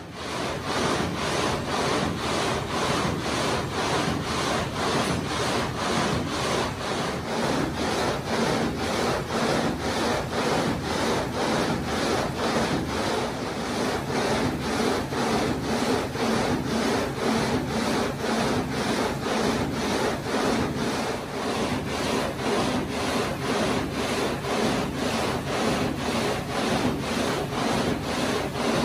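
Reciprocating multi-blade gang saw cutting a stone block into slabs: the blade frame rasps back and forth through the stone in a steady, even rhythm.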